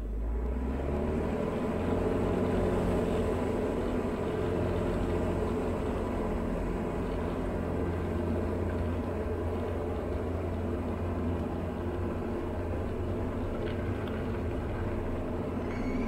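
Diamond DA40 single-engine propeller plane at full takeoff power on its takeoff roll, heard from inside the cockpit: a steady engine-and-propeller drone that swells as power comes in at the start.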